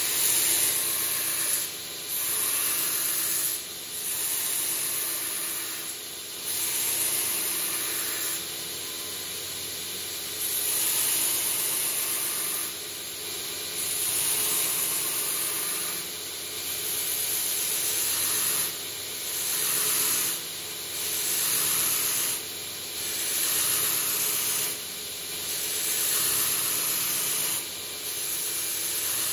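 Belt grinder running while a Kh12MF steel knife blade, clamped in a grinding jig, is passed back and forth across the abrasive belt to rough-grind its bevels. The steady hiss of the belt on the steel swells with each pass, about once every two seconds.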